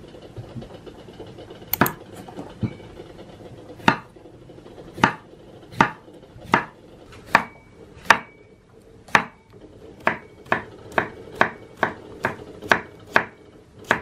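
Chef's knife slicing a cucumber on a wooden cutting board, each cut ending in a sharp knock of the blade on the board. The cuts come about once a second at first and speed up to about two a second in the second half.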